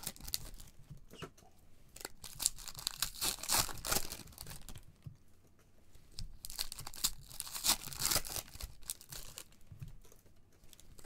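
Foil trading-card pack wrappers being torn open and crinkled in the hands. The crackling comes and goes, with a lull about halfway through.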